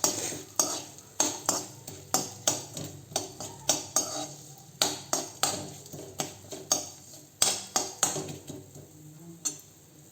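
Spoon scraping and knocking around a heavy iron kadai, about three strokes a second, as whole cumin, black pepper and coriander seeds are stirred in a little hot oil. The stirring stops near the end.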